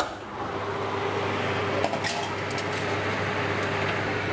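Oven door clicking open, then the oven's fan running steadily with the door open, a baking tray clinking onto the oven rack about two seconds in, and the drop-down door being shut near the end.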